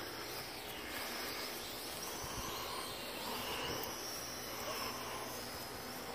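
Holy Stone HS230 racing quadcopter's motors and propellers buzzing faintly as it flies, the pitch drifting up and down with throttle changes.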